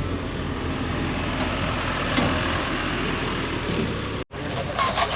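A vehicle engine running with a steady drone. About four seconds in it cuts off suddenly, and a few short sharp sounds follow.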